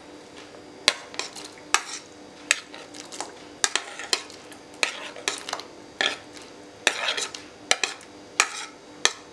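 A utensil clinks and scrapes against a plate about once a second, irregularly, as chopped tomatoes are pushed off it into a pot of boiling water.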